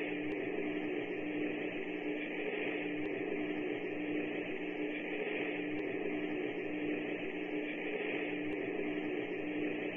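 Steady hiss with a low, even hum beneath it, unchanging throughout, with a few faint ticks.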